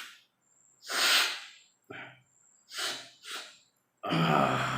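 A person sniffing sharply through the nose to draw Rasnadi herbal powder up the nostrils. There is one long sniff about a second in, a short one, then two quick sniffs close together near three seconds, and no sneeze follows. A voice starts near the end.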